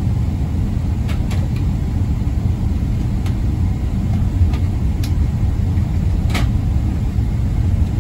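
Steady low cabin rumble of a Boeing 777-300ER taxiing, heard from inside the passenger cabin, with a few faint clicks scattered through it.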